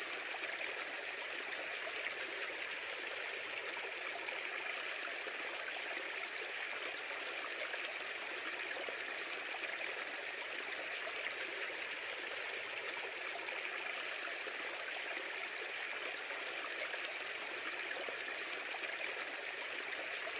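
Steady, even rushing hiss that does not change in level or character.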